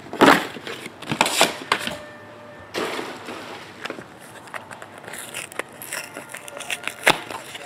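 Trading card packs being opened and handled: wrappers crinkling and tearing, with irregular clicks and a sharp click about seven seconds in.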